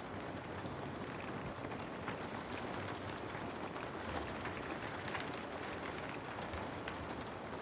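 Steady rain falling, with many small drops ticking on hard surfaces.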